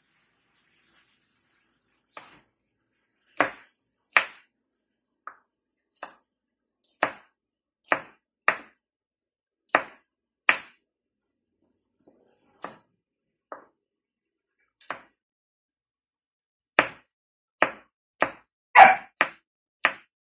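Kitchen knife chopping garlic cloves on a wooden cutting board: separate sharp knife strikes at irregular intervals, with a quicker run of chops near the end.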